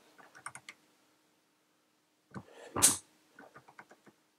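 An old Laser 3/8-inch insulated slipper torque wrench, set to 25 Nm, releasing once at its set torque on a torque tester. The release is a single loud, sharp snap about two-thirds of the way in. A quick run of light ticks follows it, and a few faint ticks come near the start.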